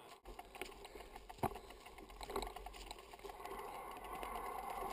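Mountain bike riding over a rough, rocky forest singletrack: scattered knocks and rattles from the bike over the bumps, with a steady buzz that grows louder from about halfway through.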